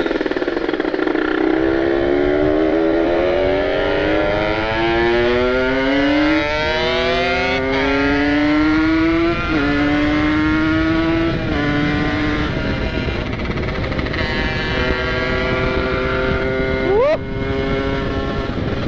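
Kawasaki Ninja 150 RR's single-cylinder two-stroke engine, freshly ported and being broken in, pulling up through the gears. Its pitch climbs and drops sharply at each of three upshifts, then holds steadier and lower. A brief sharp rising sound comes near the end.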